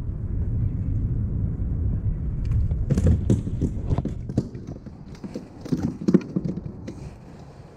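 Knocks and clicks from hands working the fishing line and gear in a small boat, scattered through the second half, over a low rumble that fades out about halfway through.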